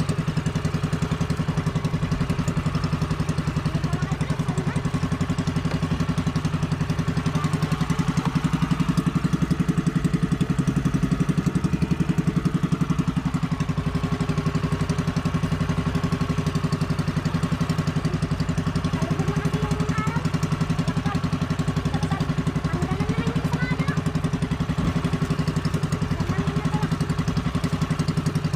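Outrigger fishing boat's engine running steadily with an even, rapid beat. Its note lifts slightly about eight seconds in and settles back some five seconds later.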